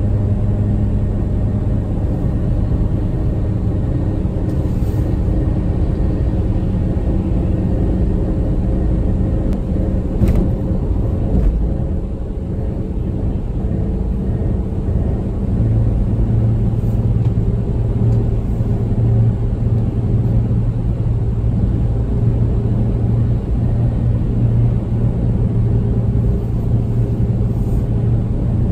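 Car cabin noise at highway speed: a steady low rumble of engine and tyres on the road, with a low hum that grows stronger a little past halfway.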